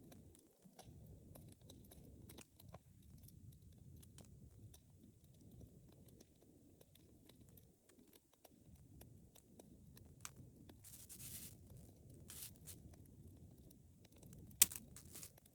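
Wood fire burning in a fireplace: a low rumble of flames with scattered small crackles and ticks, short hisses near the end and one sharp pop about three seconds before the end.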